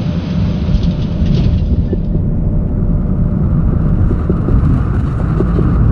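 Airbus A220-300 on the runway around touchdown and the start of the landing roll, heard from the cockpit: a deep, steady rumble of wheels and engines that grows slightly louder.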